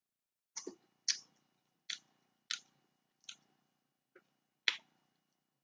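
Snow crab being eaten close to the microphone: about eight short, sharp cracking and smacking sounds, irregularly spaced, as shell is snapped and meat is bitten and chewed.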